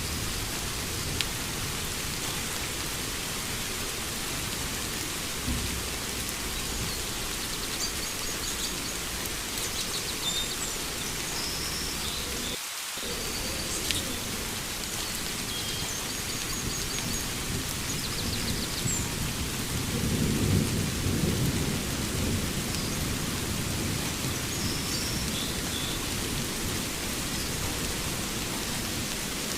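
Steady rain with low rolling thunder that swells about twenty seconds in. Faint short bird chirps come and go above the rain, mostly in the first half.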